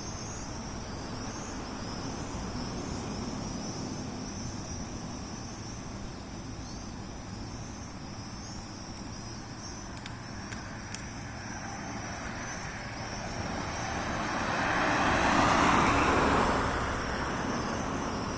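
Insects, crickets by their sound, chirring steadily in a high wavering band, while a car approaches and passes, its tyre and engine noise swelling to a peak near the end and then fading.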